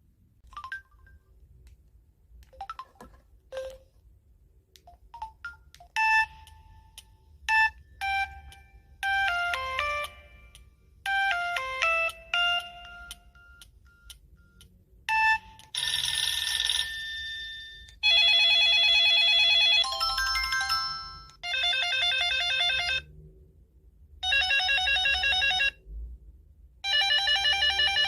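Samsung Anycall SCH-S530 mobile phone playing ringtones through its speaker. After a few faint clicks, a melody of quick electronic notes plays, followed by several ringing patterns of a second or two each, separated by short gaps.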